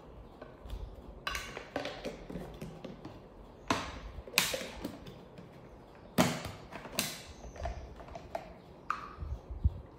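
A handful of sharp clicks and knocks at uneven intervals, with light creaking, from a plastic milk bottle, a formula tin and a woven basket being handled.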